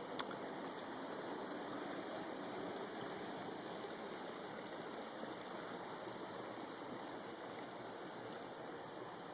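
Steady rushing of creek water running over its bed. A single sharp click just after the start.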